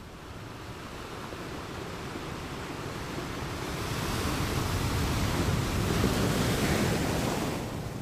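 Waterfall's rushing, splashing water, growing louder through the middle and dropping back near the end, with wind rumbling on the microphone.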